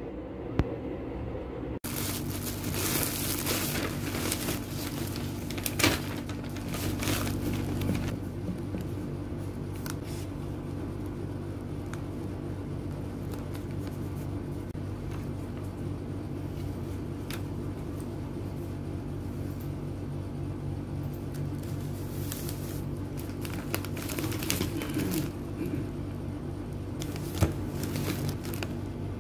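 Wrapping paper rustling and crinkling in two stretches as a gift package is handled and wrapped, with a few sharp clicks, over a steady low hum.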